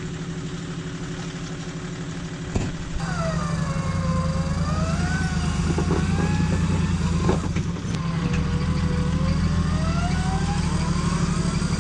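A bogged 4x4's engine idling, then put under load about three seconds in and held there as the vehicle tries to drive out of the mud, with a whine over it that rises and falls.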